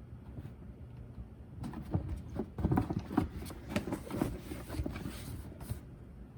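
Cardboard box being handled and turned over: a run of irregular knocks and rustles starting a couple of seconds in and lasting about four seconds.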